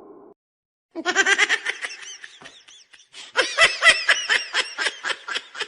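High-pitched, rapid giggling laughter used as a meme sound effect. It starts about a second in after a short silence and comes in quick repeated bursts, easing briefly near the middle before picking up again.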